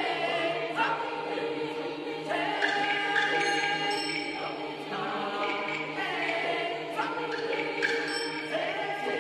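Twelve-part mixed chorus singing sustained chords that shift every second or two, each new chord starting with a sharp attack.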